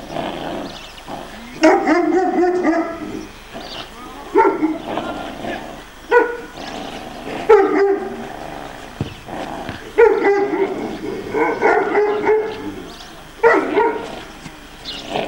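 Presa Canario puppy barking in about six short bouts while it tugs on a cloth toy: play barking.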